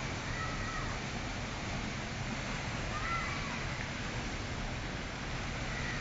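Steady rushing of a tall waterfall pouring into its plunge pool. A few short, faint calls rise above the water about half a second in, around three seconds in, and near the end.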